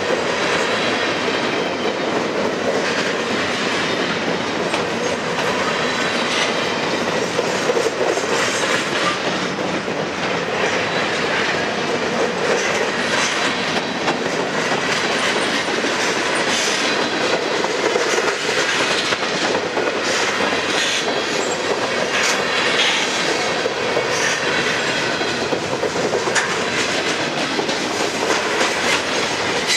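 Freight cars of a long mixed freight train rolling past at close range: a steady, loud rumble and clatter of steel wheels on the rails.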